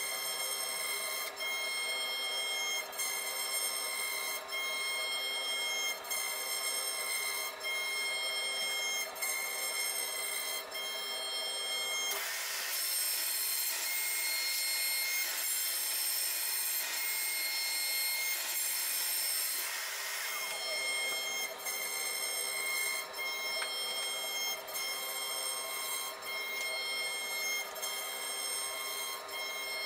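CNC router spindle whining steadily as its end mill cuts into a wooden board, with a faint tick about every second and a half. From about twelve to twenty seconds in, a vacuum cleaner hisses over it as it sucks up the wood chips.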